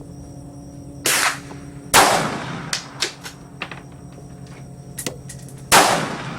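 Rifle shots at an outdoor range: three loud single shots, about a second in, two seconds in and near the end, each with an echoing tail, and fainter cracks between them.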